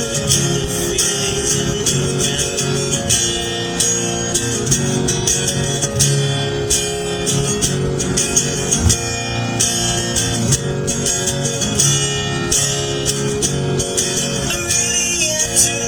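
Music: plucked guitar-like strings over sustained notes, with a steady run of light jingling percussion strokes.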